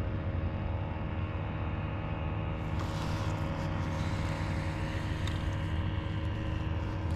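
A steady engine drone running at an even speed, with a higher hiss joining about three seconds in.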